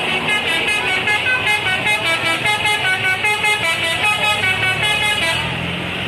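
Bus telolet horn playing a fast melody of short notes that jump in pitch, about four to five a second, stopping about five and a half seconds in. A bus engine runs beneath.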